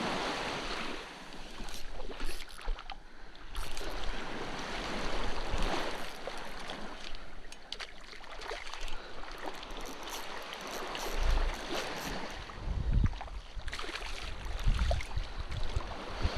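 Sea water rushing and splashing around a boat, in swelling waves of noise, with wind buffeting the microphone in low rumbles from about two-thirds of the way in.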